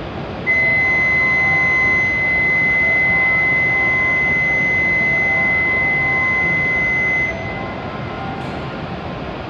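A steady high-pitched electronic warning tone sounds for about seven seconds and then cuts off suddenly, with faint lower tones coming and going beneath it. Underneath is the steady hum of the stationary W7 series Shinkansen and the station, with a short click near the end.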